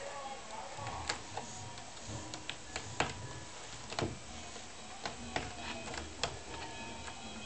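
Irregular sharp clicks and ticks, a few scattered across several seconds, as a domestic cat's claws catch and pull on the sisal rope of a cat-tree scratching post.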